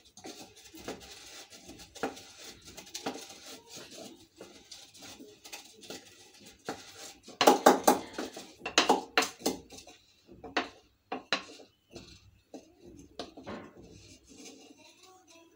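Kitchen dishes and utensils clinking and knocking in irregular scattered strikes, busiest in a cluster about halfway through.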